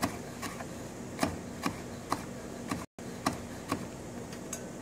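Chef's knife chopping fresh basil on a wooden cutting board: single sharp knocks of the blade on the board, about two a second, unevenly spaced.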